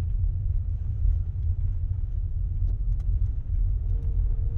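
Low, steady rumble of a car driving on a snowy road, with a few faint ticks and a brief faint hum near the end.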